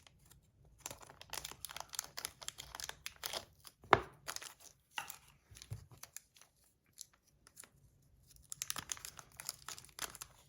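Small packaging bags crinkling as they are handled and torn open by hand, in two spells. There is one sharp snap about four seconds in.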